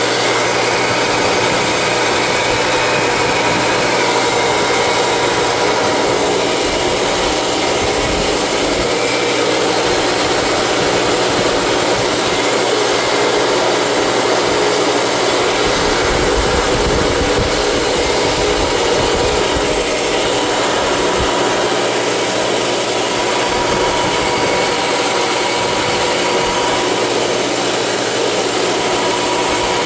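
A metal cutoff saw's 5 hp Baldor three-phase motor running steadily with no load, fed from single-phase power through a digital phase converter.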